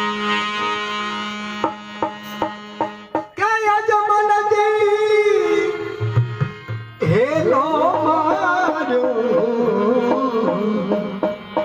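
Harmonium and dholak playing devotional folk music: a steady harmonium drone with drum strokes, then from about three seconds in a man sings long, wavering held notes over them.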